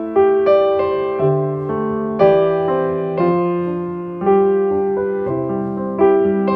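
Background music: a gentle piano melody, its notes struck and left to fade, a new note about every half second.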